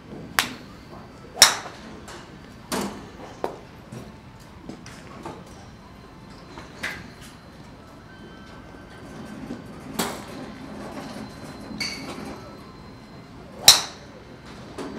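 Golf irons striking balls off a driving-range mat: a series of sharp clicking cracks from this bay and neighbouring ones. The loudest come about a second and a half in and near the end.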